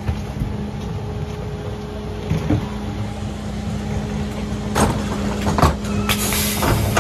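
Mercedes Econic refuse truck running with a steady hum, with several sharp knocks in the second half.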